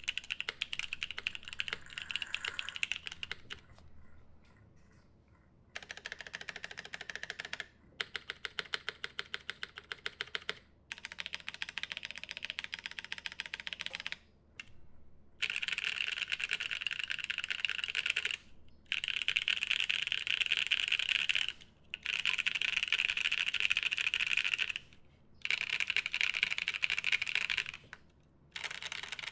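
Fast typing on a mechanical keyboard with Paco switches on a polycarbonate plate and GMK keycaps, key clicks coming in runs of a few seconds with short pauses between them.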